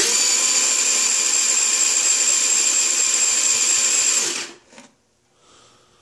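Chinese 49cc scooter engine cranked by its electric starter: a steady whir lasting about four and a half seconds, then it stops. With the spark plug out, the engine spins over without firing because there is no spark, which the owner puts down to a failed CDI box.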